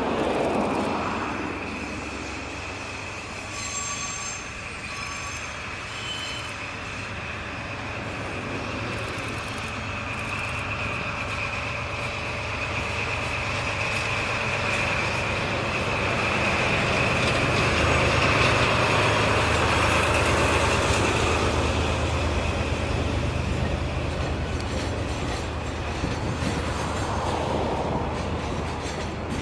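DD16 diesel-hydraulic locomotive running as it shunts, its low engine note growing louder to a peak about two-thirds of the way through and then easing off, with a steady high squeal over it throughout.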